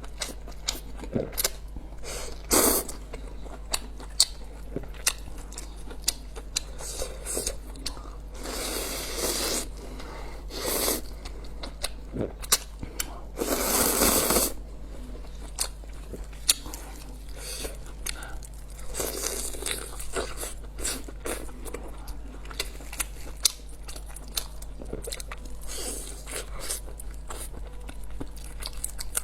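Close-miked eating of instant noodles and a chicken leg: biting and chewing with many sharp crunching clicks, and a few longer rushes of noise lasting about a second each.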